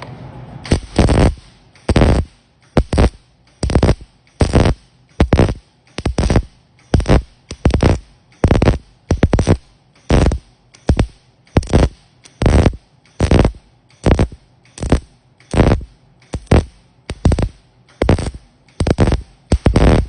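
MIG welding arc struck in short, evenly paced bursts, a little more than one a second: stitch welding, with the gun trigger pulled and released over and over.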